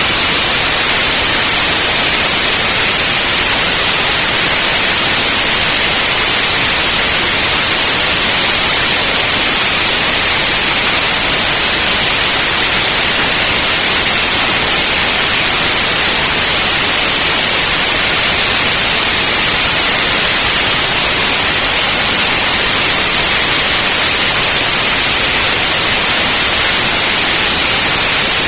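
Steady synthetic white noise: a constant, even hiss with no change or events, loudest in the high frequencies.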